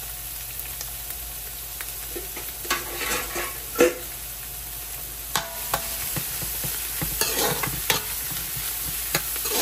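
Chopped onion, celery and cilantro sizzling in hot olive oil in a large aluminium karahi, with a metal spoon scraping and stirring through them several times and one sharp knock of the spoon against the pan partway through.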